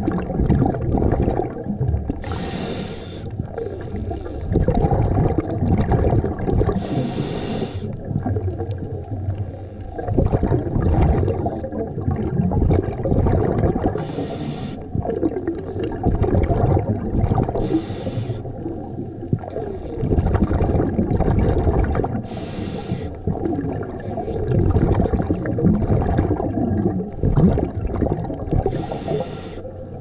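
Scuba diver breathing through a regulator underwater: six short hissing inhalations a few seconds apart, with bubbling, rumbling exhalations in between.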